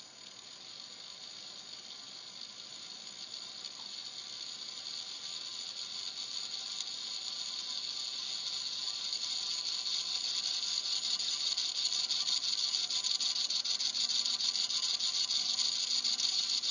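Tiny 15 mm geared DC motor from a musical greeting card, run from a bench power supply, whirring with a fine, rapid gear chatter. It grows steadily louder as the voltage is turned up.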